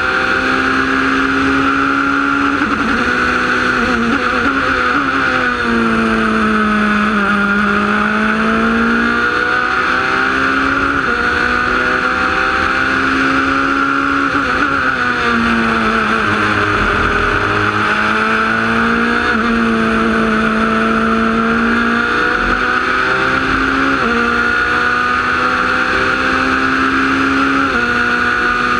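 Onboard sound of a Wolf GB08 sports prototype's Honda engine at racing speed. Its pitch climbs and falls with the gear changes in a few sudden steps, and sags low twice, about a quarter of the way in and just past the middle, under braking for corners.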